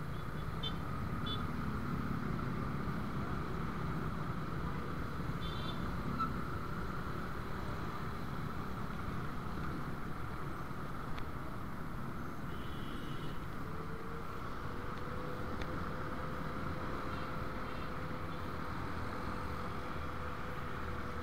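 Dense motorcycle and car traffic heard from a motorbike: steady engine and road noise as riders wait at a light and then move off slowly. A few short high beeps sound near the start, about five seconds in and again about twelve seconds in.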